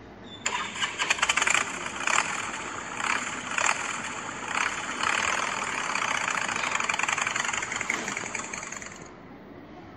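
Motorcycle engine running, revved in several short bursts during the first half, then running more evenly until it stops about nine seconds in.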